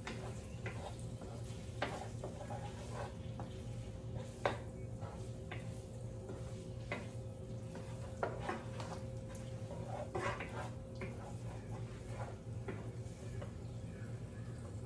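A utensil stirring and knocking against a pan of shrimp, shallots and garlic sautéing in butter, with scattered clinks, the loudest about four and a half seconds in, over a steady low hum.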